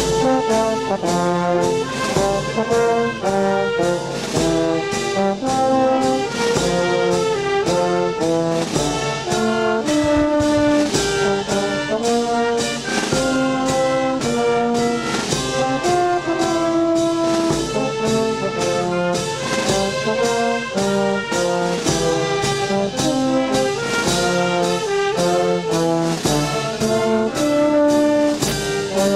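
Wind band playing: brass and saxophone carry the tune over a bass drum and snare drum keeping a steady beat about twice a second.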